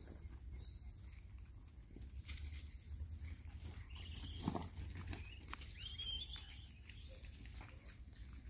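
Monkeys moving about and feeding: light pattering and scrabbling, with faint high chirps and one louder thump about four and a half seconds in.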